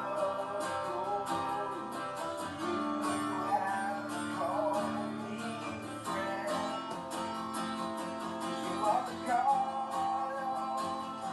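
Background music led by a strummed acoustic guitar, playing steadily and cutting off abruptly at the end.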